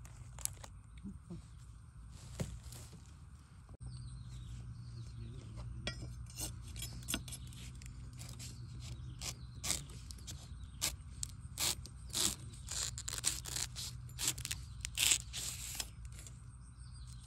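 Knife cutting into a fresh bamboo shoot at its base among dry bamboo litter: a run of irregular sharp crunches and cracks, coming thick and fast from about six seconds in.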